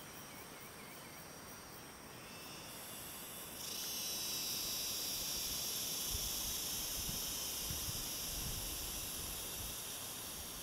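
Cicadas buzzing in a steady high-pitched chorus that swells up suddenly about three and a half seconds in. A few faint chirps come in the first second, and low rumbling comes and goes from about six seconds in.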